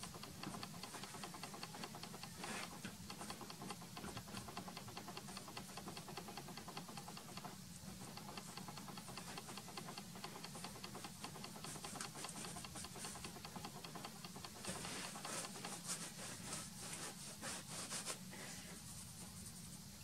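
Soft pastel being worked over a primed board: faint, quick scratchy strokes and ticks, busiest a few seconds before the end and then dying away, over a low steady hum.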